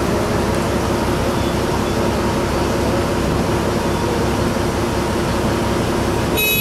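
Diesel engine of a passenger-and-vehicle ferry running with a steady drone. A horn beeps briefly just before the end.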